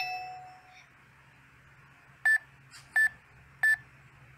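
Toy ATM coin bank's keypad beeping three times, about two-thirds of a second apart, as its number buttons are pressed. The last note of the toy's electronic tune fades away just before.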